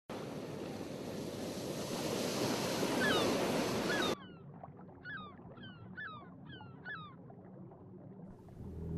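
Ocean surf and wind sound that cuts off abruptly about four seconds in, giving way to a quieter underwater ambience. Through the middle, a series of short, high chirps, each falling in pitch, repeats about twice a second. A low rumble begins to swell near the end.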